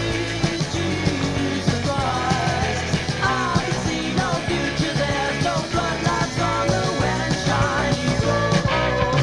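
Rock music from a band: dense and loud, with wavering melodic lines over a steady low bass.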